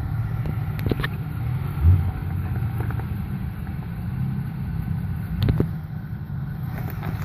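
Toyota FJ Cruiser's 4.0-litre V6 running steadily at low revs as the truck crawls over rock, with a few short knocks, the loudest about five and a half seconds in.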